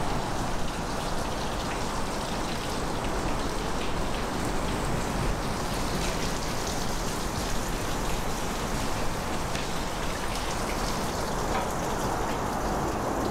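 Steady rushing, splattering water noise with faint scattered drips and ticks.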